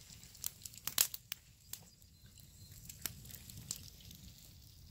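Wood campfire crackling, with irregular sharp pops a few times a second.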